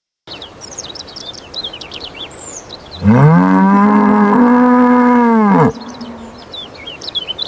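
Ox giving one long moo about three seconds in, rising at the start and dropping off at the end, with small birds chirping in the background.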